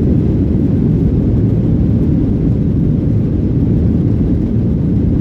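Jet airliner cabin noise heard from a window seat over the wing: a steady low rumble of the engines and rolling gear as the plane taxis on the ground.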